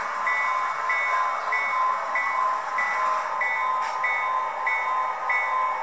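Sound-equipped HO-scale SW1000 diesel switcher model with its locomotive bell ringing steadily, about one and a half strokes a second, over a steady running noise.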